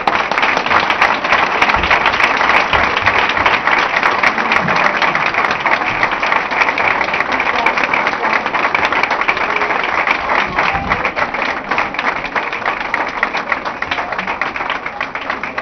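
Audience applauding, a dense, steady clapping that starts loud and eases slightly toward the end.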